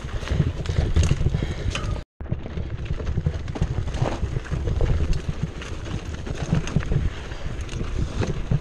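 2015 Cannondale Jekyll 4 full-suspension mountain bike rattling and clattering as it rolls downhill over dirt and rocks on singletrack, with tyres crunching and a steady run of knocks and clicks. The sound drops out for a moment about two seconds in.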